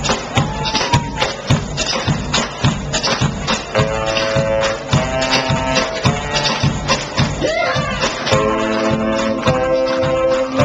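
Live band music played loud: a steady beat of about two a second, with long held notes coming in about four seconds in.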